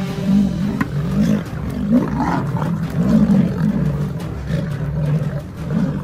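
Lions growling at close range during an attack, in a run of low, rough growls that overlap and come one after another.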